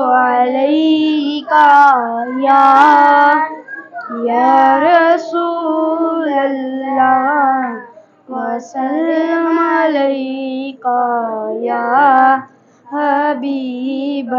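Two boys singing the opening phrases of a naat, an Islamic devotional song, without accompaniment. Their long held notes waver and bend in pitch, with short pauses for breath between phrases.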